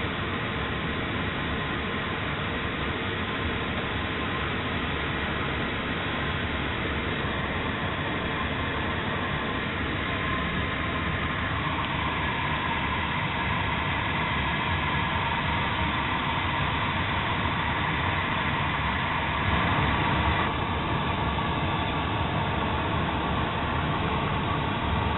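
Steady rush of airflow heard inside a glider's closed cockpit in flight, with a faint steady whistle that grows a little louder about halfway through.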